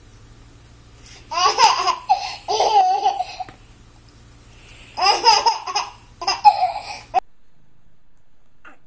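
Baby laughing in two bouts, about a second in and again about five seconds in, with high-pitched breathy giggles that cut off abruptly near the end.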